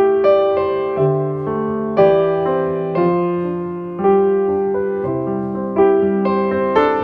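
Slow, gentle piano music: notes and chords struck about once a second, each left to ring and fade.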